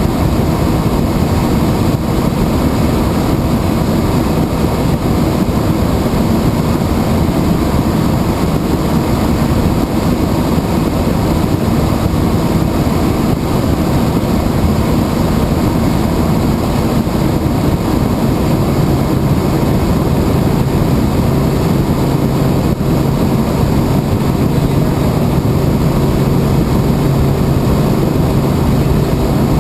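Helicopter engine and rotor noise heard from inside the cabin in flight: a loud, steady drone with a low hum that grows stronger about eighteen seconds in.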